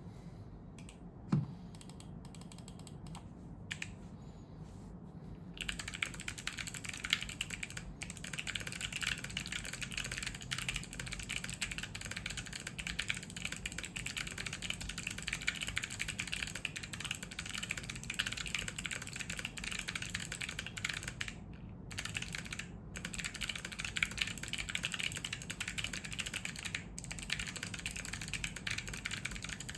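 Mechanical keyboard with clicky Kailh Box White switches, a steel plate and ABS keycaps, its back dampened with foam and masking tape, being typed on: a few scattered keystrokes, then fast steady typing from about five seconds in, with two brief pauses near the end. A dull thump about a second in.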